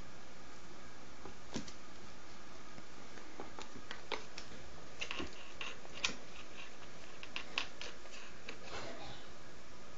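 Light, irregular clicks and taps of kittens' paws and claws skittering on a hardwood floor over a steady hiss, the sharpest tap about six seconds in.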